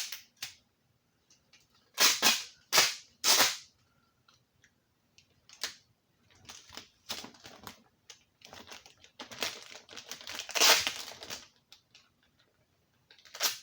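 Adhesive tape being torn off its roll in short, sharp rips, three loud ones about two to three and a half seconds in, then a longer stretch of crackling and rustling as the tape and plastic are handled, and one more sharp rip near the end.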